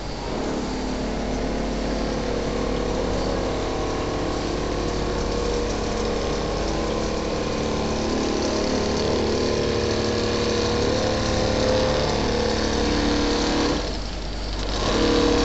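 Richpeace single-needle automatic quilting machine running steadily as its needle head stitches a mattress panel: a constant mechanical hum with several steady tones, briefly quieter near the end.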